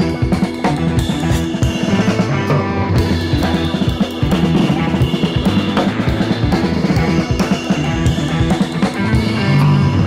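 Background rock music with a steady drum-kit beat and guitar.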